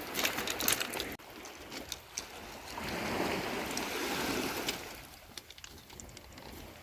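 Sea water washing at the shore, with small splashes and clicks in the first second, then a wave surging up about three seconds in and falling away.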